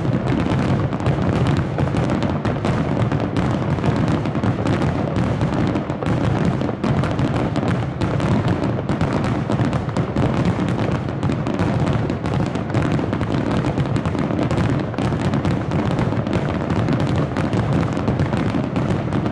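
A dense, continuous barrage of aerial firework shells bursting, deep booms and crackles overlapping without a break.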